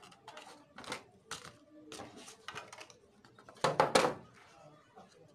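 Cardboard phone box and its packaging being handled: a run of light clicks and taps, with one louder rustling clatter about two-thirds of the way through.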